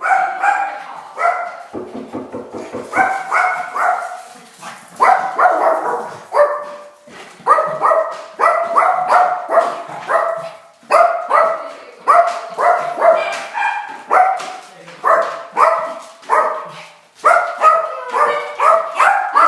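Tiny dog barking frantically at the doorbell: short, high-pitched barks, about two a second in quick runs, without let-up.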